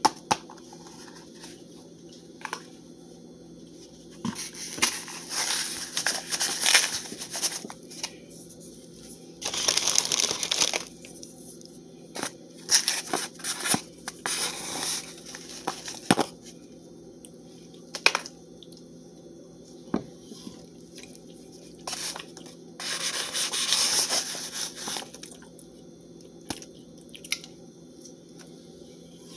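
Paper cornstarch box being shaken out and a plate of chunky cornstarch being handled: irregular bursts of crinkly rustling and crunching a few seconds apart, with scattered clicks and taps, over a steady low hum.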